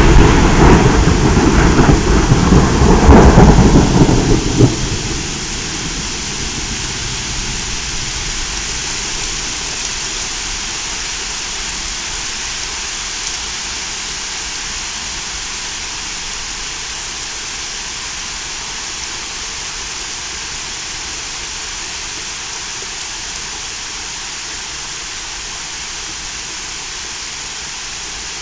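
Thunder from a close cloud-to-ground lightning strike rumbling on, swelling again about three seconds in and dying away about five seconds in. Steady rain follows, fading slowly.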